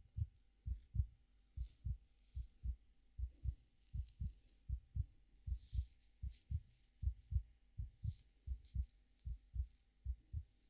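A steady heartbeat, a lub-dub pair of low thumps repeating evenly, under soft irregular rustling of fingers playing with hair close to the microphone.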